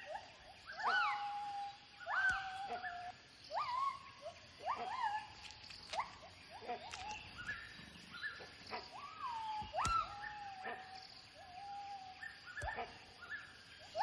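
Gibbons calling in a series of whooping hoots. Each note sweeps up in pitch and then drops back or levels off, repeated roughly once a second: a territorial vocal display.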